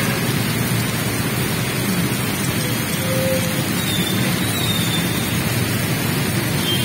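Heavy tropical rain falling steadily on the road and pavement, an even, unbroken hiss.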